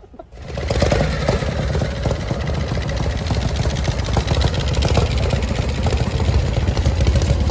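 Vintage Harley-Davidson chopper V-twin engines running at idle, a steady low pulsing rumble that starts suddenly about half a second in.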